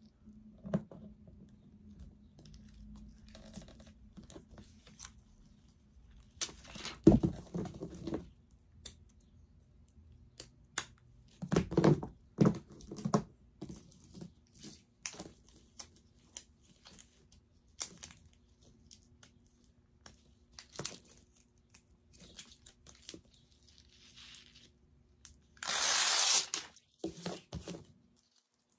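Self-adhesive rhinestone trim being handled, peeled and pressed onto a glitter mat-board frame: scattered crinkles, taps and rustles, with a louder tearing sound about a second long near the end.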